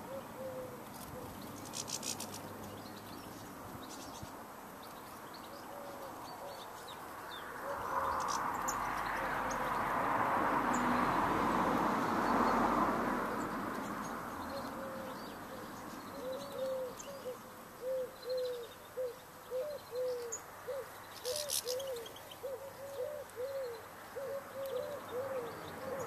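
A pigeon cooing: short, low notes repeated in runs, about two a second and steadiest in the second half. A rush of noise swells and fades in the middle, and there are a couple of brief high chirps from small birds.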